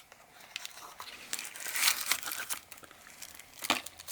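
Packaging of a small padlock being opened by hand: paper and packing crinkling and tearing, with scattered clicks, a longer rustle about halfway through and a sharp click near the end.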